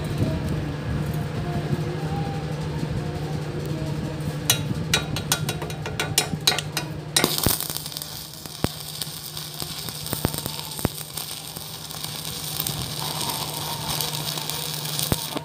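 Electric arc welding. A quick run of sharp crackles about four and a half seconds in as the arc strikes, then from about seven seconds in the steady hiss and crackle of the burning arc. A steady low hum sits under it all.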